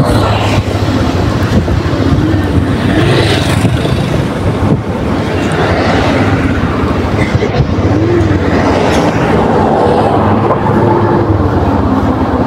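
Motorbike engine running under way, its pitch rising and falling several times as the rider speeds up and eases off, with wind rushing over the microphone.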